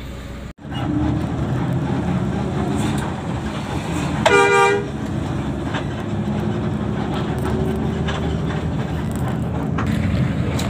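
Steady engine and road rumble inside a moving intercity bus, with one short horn blast about four seconds in.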